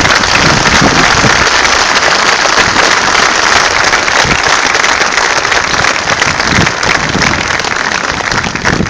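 Large crowd applauding outdoors, a dense continuous clatter of clapping that eases off slightly near the end.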